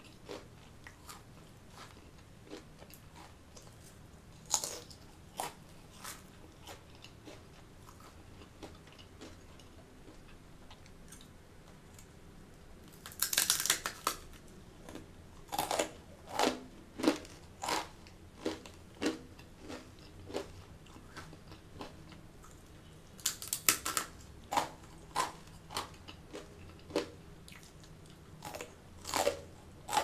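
Close-miked crunchy eating of fried murukku: soft, quiet chewing at first, then a loud crisp bite about halfway through and another about three-quarters through, each followed by crunching chews about once a second.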